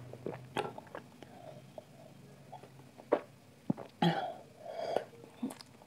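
Close-up mouth sounds of a person drinking buttermilk from a glass: small lip smacks and mouth clicks, then two louder gulps about four and five seconds in.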